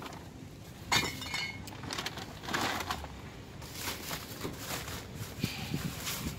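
Groceries being loaded into the back of an SUV: a sharp clink with a brief ring about a second in, then plastic grocery bags rustling and bumping as they are set down in the cargo area.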